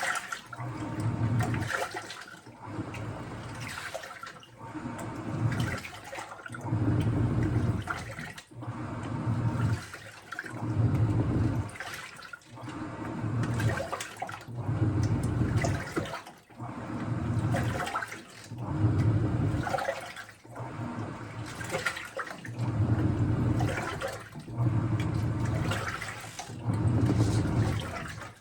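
Washing machine drum turning with water, a rhythmic swish and rumble of sloshing water that swells and fades about every two seconds.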